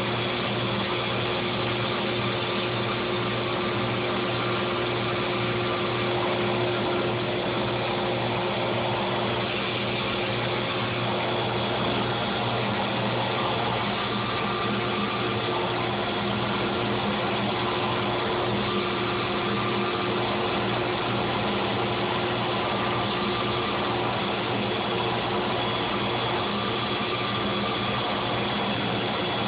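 EZ CNC Model 4896 CNC router running, with its regenerative vacuum blower and spindle making a steady machine drone with a held hum and a faint high whine. A slightly higher tone comes and goes every few seconds.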